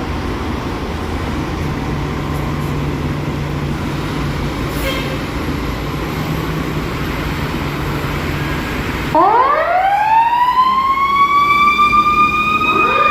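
A steady low rumble, then about nine seconds in a fire apparatus siren winds up, climbing steeply in pitch and levelling off high and loud. Near the end a second siren sweep begins rising beneath it.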